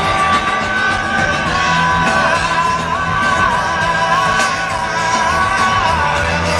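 Live rock band playing, with a singer holding long notes whose pitch bends and slides over the guitars and drums, recorded loud from the audience.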